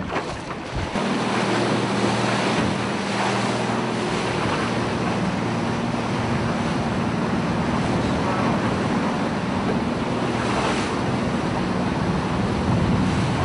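A motorboat's engine running steadily, its hum growing louder about a second in, with wind buffeting the microphone and the rush of water and waves.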